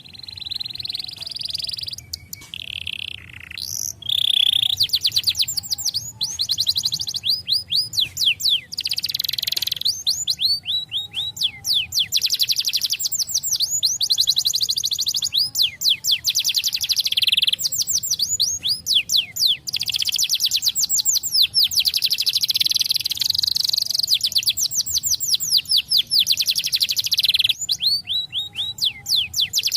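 Canary singing a long, continuous song of rapid trills: fast runs of repeated notes rolling from one phrase into the next, broken only by brief pauses.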